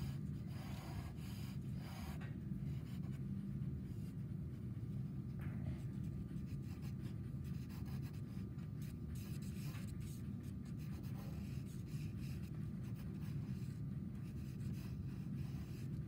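Sienna Conté pencil scratching on paper in short, irregular sketching strokes, over a steady low room hum.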